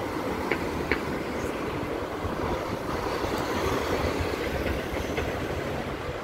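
Steady low rumble of city street traffic, swelling slightly midway, with two short sharp clicks about half a second and a second in.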